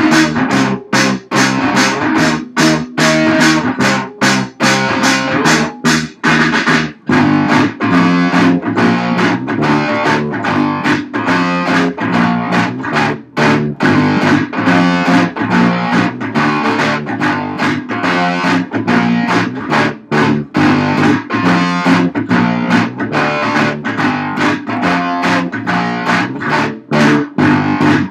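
Rock music played on guitars, with electric guitar and bass: driving rhythmic chords that stop and start in short breaks at first, then run fuller and steadier from about seven seconds in.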